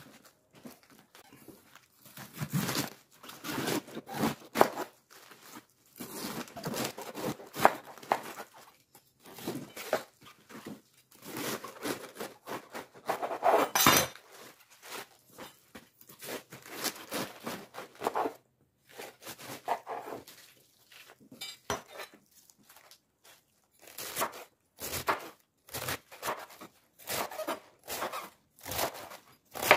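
Crisp white cabbage being broken apart by hand: leaves crunching, cracking and tearing in irregular bursts, loudest about halfway through. Near the end a knife chops through cabbage onto a wooden cutting board in a run of short, separate strikes.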